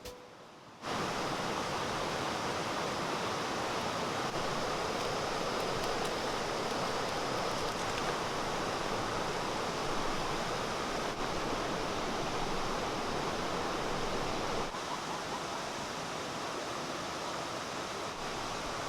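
Mountain stream water rushing steadily. It starts abruptly about a second in and turns a little quieter for the last few seconds.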